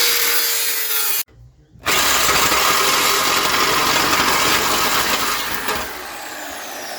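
Power tool with a zip-disc cut-off wheel cutting through a steel exhaust pipe. It stops abruptly for about half a second just after a second in, then cuts again, and near the end it eases off the cut and the disc begins to whine down in pitch.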